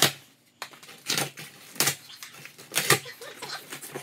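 Cardboard shipping box being opened by hand: several short, sharp ripping and scraping noises of cardboard, roughly a second apart.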